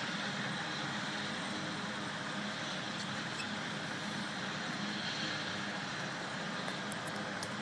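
Kinner B5 five-cylinder radial engine of a Fleet Finch biplane idling steadily after a hand-propped cold start.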